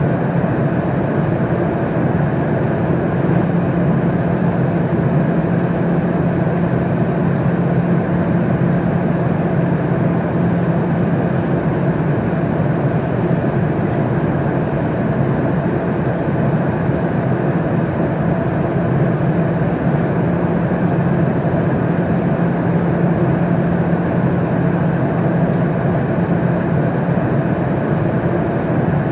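Airliner cabin noise in flight: a steady, unbroken rush of engine and airflow noise with a low hum underneath.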